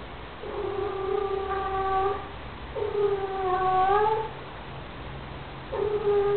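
Cat yowling: three long, low, drawn-out yowls that waver in pitch, the last starting near the end. It is the threat yowl of a cat squaring off to fight.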